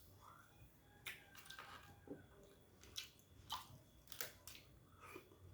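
Faint close-up chewing and lip-smacking, a handful of soft wet clicks spread over a few seconds.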